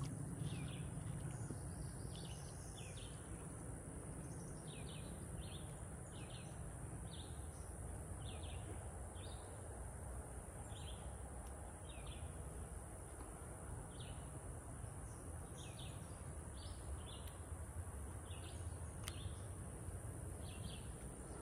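A bird chirping over and over, short high chirps about one or two a second, over a steady low background rumble of outdoor noise.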